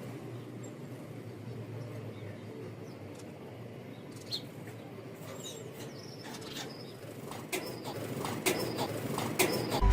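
Small birds at a rooftop seed spot: a few faint chirps over a steady low hum, then a quickening run of wing flaps and sharp taps that grows louder over the last two or three seconds.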